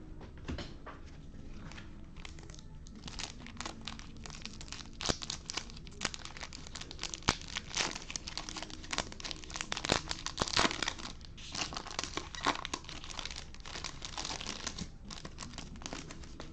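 Foil wrapper of a 2020 Topps Chrome baseball card pack crinkling and tearing as gloved hands rip it open and peel it off the cards. The crackling starts a couple of seconds in, is densest about two-thirds through, and thins out near the end.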